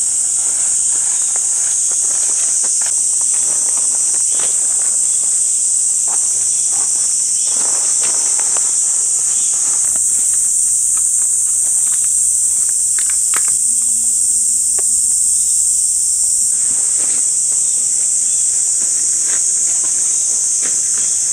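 Steady, high-pitched chorus of summer insects, with scattered rustles and clicks from tent fabric and gear being handled and steps on leaf litter.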